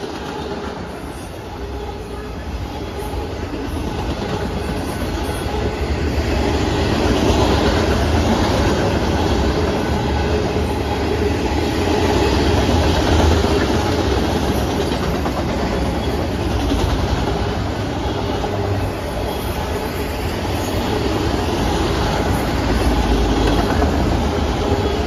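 Norfolk Southern manifest freight train's cars rolling past close by: a steady, loud rumble of steel wheels on the rails, growing louder over the first several seconds and then holding.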